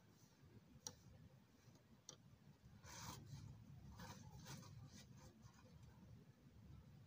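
Near silence with a low room hum, broken by a few faint clicks and short scraping or rustling sounds of small handwork.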